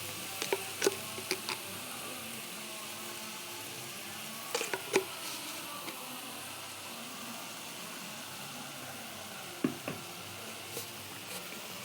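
Onion and spice masala sizzling steadily in hot oil in a pan as it is fried down, with a few short clinks of the stirring spoon against the pan in three small groups.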